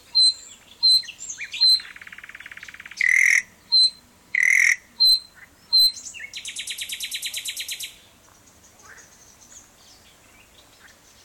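Common nightingale singing: loud, separate whistled notes, a buzzy trill, more loud notes, then a fast rattling phrase of about two seconds, followed by softer, scattered song.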